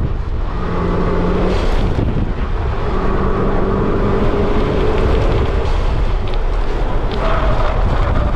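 2012 Mazdaspeed3's turbocharged four-cylinder engine driven hard, its note rising and falling with the throttle, under heavy wind buffeting on an outside-mounted microphone.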